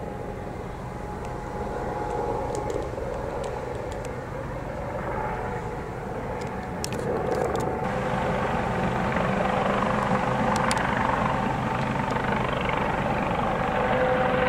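Eurocopter Dauphin fire-and-rescue helicopter flying low: steady rotor and turbine noise with a humming tone, growing louder about halfway through.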